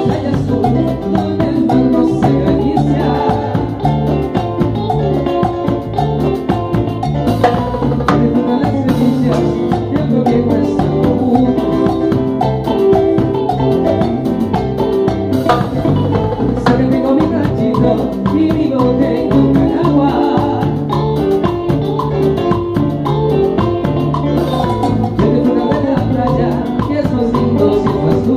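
Salsa band playing live at a sound check: bass, percussion and a steady Latin groove.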